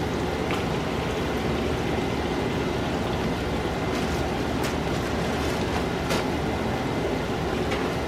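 Floured chicken pieces deep-frying in hot oil: a steady sizzle with a few scattered sharp pops.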